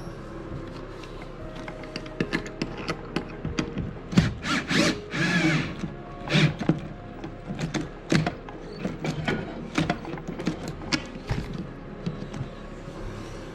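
Metal mounting hardware clinking and knocking as bolts, washers and nuts are handled and fitted, in irregular clicks, with a denser run of knocks and scraping about four to six seconds in.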